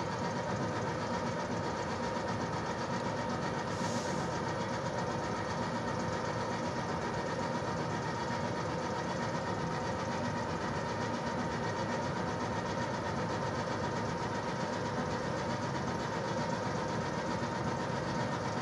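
VL80K electric locomotive standing at a stop with its auxiliary machines and blowers running: a steady hum with a held whine. A short hiss comes about four seconds in.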